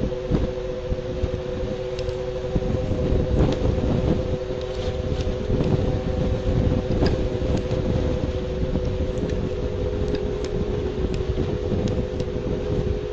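A steady drone of two held tones over a dense low rumble, with faint scattered clicks. It is the unexplained hum picked up by a city webcam's outdoor microphone.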